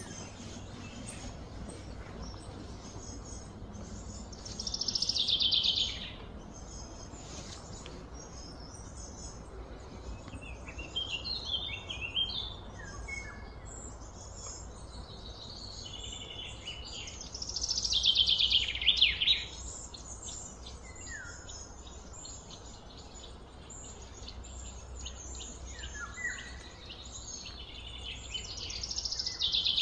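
Outdoor birdsong: a loud falling song phrase comes three times, roughly every twelve seconds, with shorter chirps in between, over a steady low background hum.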